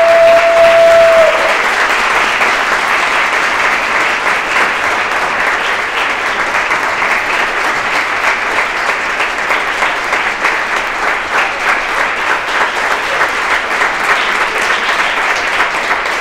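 Audience applauding steadily with dense clapping. Right at the start a single high whoop rises briefly and is held for about a second and a half over the clapping.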